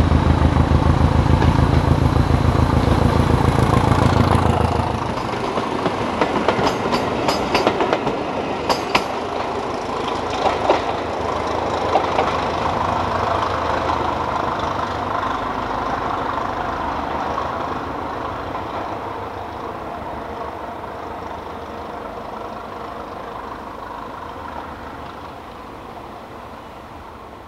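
Class 207 'Thumper' diesel-electric multiple unit 1317 passing: its diesel engine's rapid low pulsing is loud for the first four seconds or so, then falls away. Wheels click over the rail joints several times and the train's noise fades.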